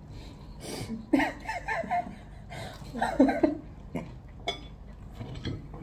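A person laughing in two short bursts of quick pulses, with a couple of light clicks after them.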